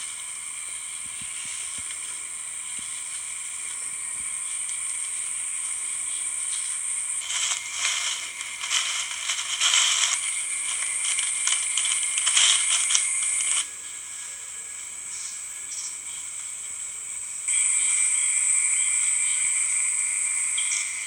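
Insects buzzing steadily in a high, continuous drone. About seven seconds in comes a stretch of rapid clicks and rustling that stops sharply near the two-thirds mark.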